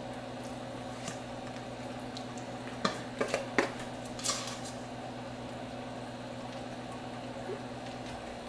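A spoon scooping and scraping sauce out of a stainless steel mixing bowl onto chicken, with a few light clicks and scrapes about three to four seconds in. A steady low hum sits under it and stops near the end.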